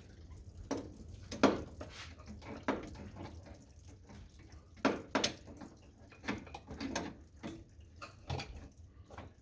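Scattered light clicks and knocks of hands and metal parts at work, a throttle cable and its clamp being fitted into place under a tractor's dash.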